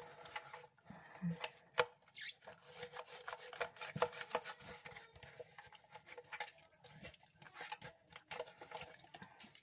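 A slime container being cleaned out by hand: irregular rubbing and scraping with many small clicks.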